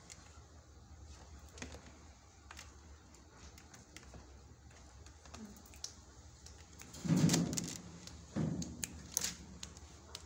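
A hard plastic basket knocking and scraping against a plastic crate as a kitten pushes under it, with scattered light clicks. There is a louder low bump about seven seconds in and another about a second later.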